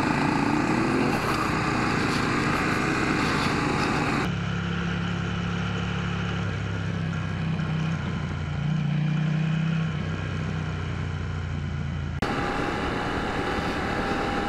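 Adventure motorcycle engines running on the move, with a rising rev about a second in. About four seconds in the sound changes abruptly to a duller, steady low engine note that steps up and down in pitch, and it switches back near the end.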